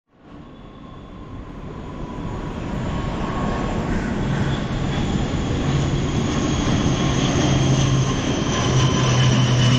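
Jet airliner flying low on approach to land, growing steadily louder, with a high whine over a low drone.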